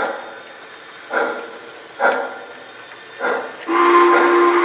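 A dog barking, short barks about once a second. About three and a half seconds in, a model locomotive's sound system gives one long blast on its horn with two steady notes.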